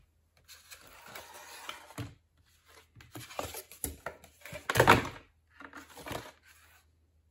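Foam board parts being handled and shuffled on a cutting mat: irregular rustling, sliding and scraping in three bouts, with the loudest knock and scrape just under two-thirds of the way through.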